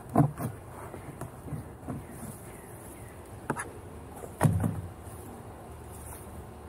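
Honeybees buzzing around an open hive, broken by a few knocks and thumps, the loudest just after the start and about four and a half seconds in.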